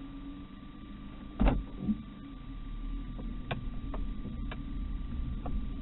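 Car cabin sound picked up by a dash cam's built-in microphone while driving: a low steady engine and road hum, a thump about one and a half seconds in, and scattered light clicks.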